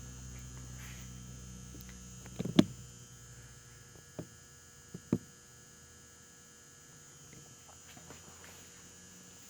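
Steady low electrical mains hum, with a few short knocks, the loudest about two and a half seconds in and smaller ones around four and five seconds in.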